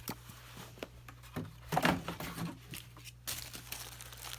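Handling noises from the phone and its packaging: scattered light clicks and rustling of plastic and cardboard, with a louder burst of rustling about two seconds in.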